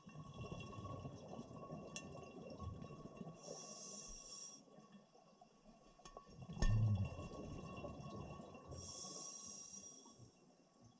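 Scuba diver breathing through a regulator underwater: the gurgling rumble of exhaled bubbles, broken twice by the hiss of an inhale, with one louder surge of bubbles past the middle. A faint steady tone runs beneath.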